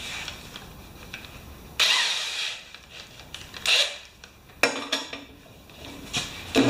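Clatter of an electric drill and socket being handled, then from about four and a half seconds in the drill runs steadily on the flywheel nut, spinning over the Powermore mower engine.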